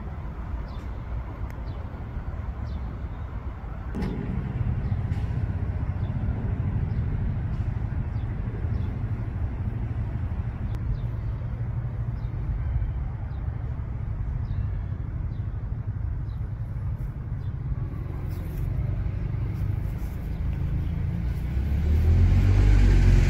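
A car engine running close by: a low steady rumble that gets louder about four seconds in and again near the end.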